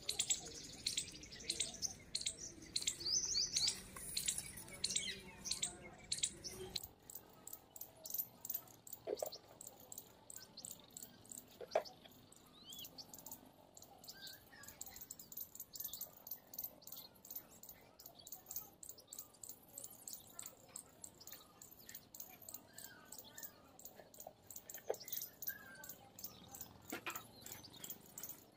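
Small birds chirping in quick, repeated short notes, with a few separate calls now and then.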